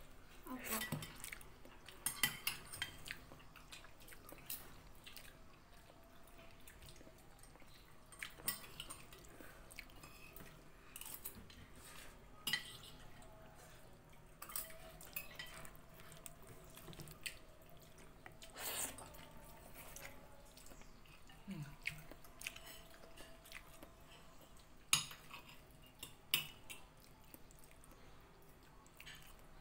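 Metal spoons and forks clinking and scraping against plates while eating, in scattered light clicks.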